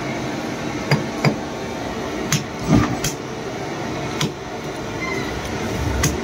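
Meat cleaver chopping mutton trotters on a wooden chopping block: about seven sharp knocks at uneven intervals, one of them heavier, about three seconds in.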